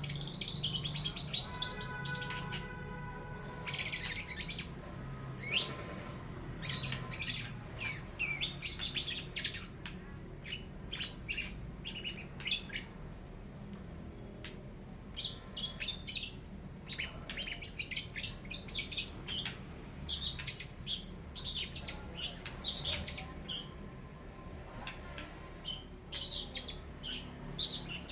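Young long-tailed shrike singing an irregular run of short, high chirps and squeaky notes, in a mimicked repertoire of lovebird and house sparrow calls. A brief held tone comes about two seconds in.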